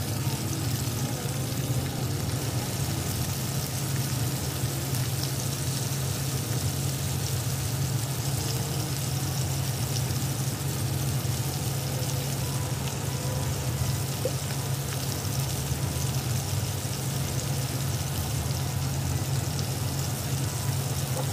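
Pork belly frying in hot oil in a wok: a steady sizzling hiss, with a steady low hum underneath.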